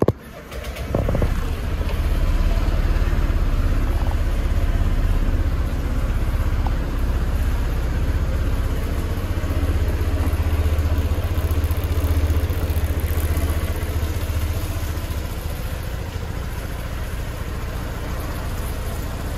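Honda PCX125 scooter's single-cylinder four-stroke engine starting about a second in, after a brief click, then idling steadily.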